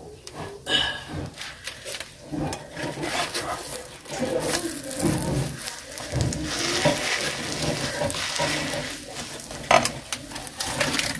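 An omelette frying in a pan over a firewood stove, sizzling, with scattered clicks and crackles.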